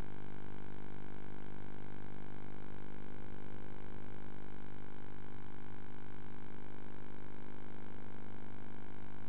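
Helicopter cabin noise: a steady drone made of many held tones.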